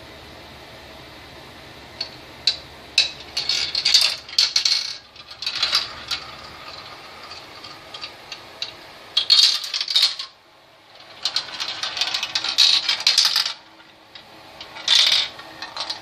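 Marbles rolling and clattering down a marble run: bursts of rapid clicks and rattles that come in waves, with a short quiet gap about ten seconds in and one last burst near the end.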